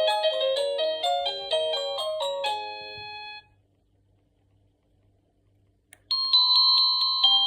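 Electronic musical doorbell chime playing a quick tune of clear bell-like notes that stops about three and a half seconds in. After a couple of seconds of silence there is a click, and another tune begins.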